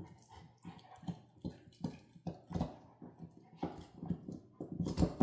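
Central Asian Shepherd puppy gnawing on a chew, with irregular crunching bites about two a second; the loudest bite comes near the end.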